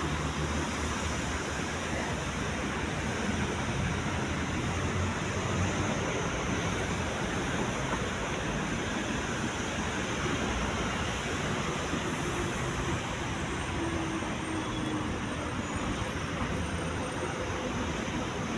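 Steady hum of city street traffic, an even wash of noise with no single vehicle standing out.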